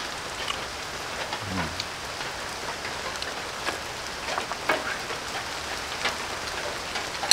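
Steady rain falling, an even hiss with scattered sharp ticks.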